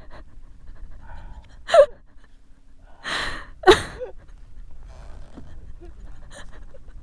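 Person laughing hard and breathlessly: a few gasping, wheezy bursts of laughter with a long noisy breath in between, coming about two, three and four seconds in.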